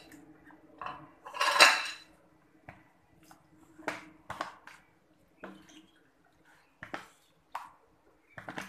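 A metal spoon knocking and scraping against a plastic bowl as raw chicken pieces are stirred in wet batter: irregular clinks and taps, with one louder clatter about one and a half seconds in.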